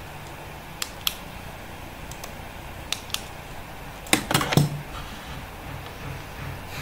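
Computer mouse clicks at a desk: two quick pairs of sharp clicks, then a louder cluster of clicks and knocks about four seconds in, over a low steady hum.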